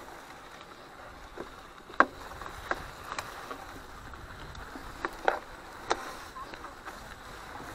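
Mountain bike clattering over rough trail: a low steady rumble with irregular sharp clicks and knocks, the loudest about two seconds in.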